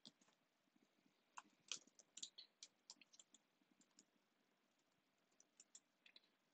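Faint computer keyboard typing: a run of quick key clicks, densest in the first few seconds, with a few more keystrokes near the end.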